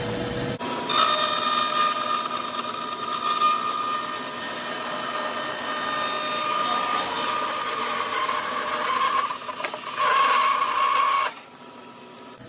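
Bandsaw with a carbide-tipped Laguna Resaw King blade resawing a board of dry dogwood: a loud, steady, high-pitched cutting whine. It starts about half a second in and stops sharply about a second before the end as the blade leaves the wood, leaving the saw running free and quieter.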